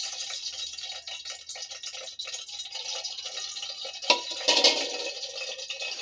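Cooking oil heating in an aluminium pot, a steady fine crackle and hiss. A sharp click a little after four seconds in, then a brief louder burst of the same noise.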